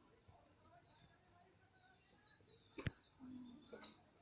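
A quick run of high, falling chirps, about half a dozen in a row, starting about two seconds in, with a single sharp click among them.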